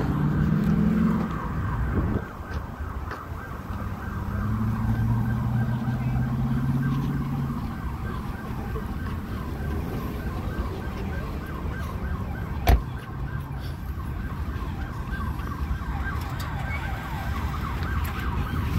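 Emergency-vehicle siren sounding with fast, repeated rising sweeps over street traffic. A vehicle engine hums as it passes in the first second and again from about four to seven seconds in. A single sharp knock a little past the middle is the loudest moment.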